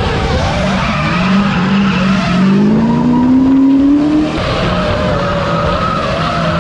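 Drift car engine revving, its pitch climbing for a couple of seconds before dropping off sharply about four seconds in, over tyre squeal and skidding.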